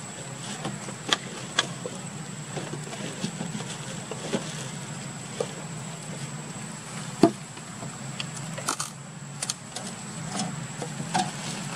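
Scattered clicks, taps and crinkles of a plastic water bottle and its cap handled by macaques on a stone, the sharpest tap about seven seconds in, over a steady low hum.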